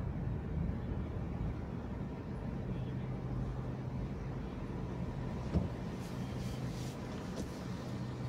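Car driving on city streets, heard from inside the cabin: a steady low engine and road rumble with a faint hum. A single sharp click comes a little past halfway through.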